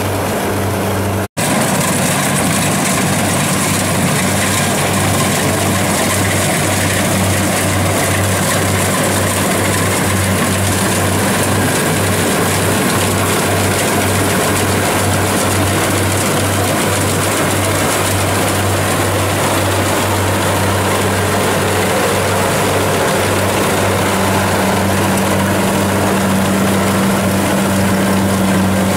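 Tracked rice combine harvester's diesel engine running steadily under load as the machine cuts and threshes rice: a loud, even drone with a low hum. The sound drops out for an instant about a second in.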